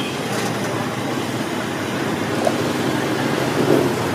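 Steady street traffic noise, an even hum and hiss with no single vehicle standing out.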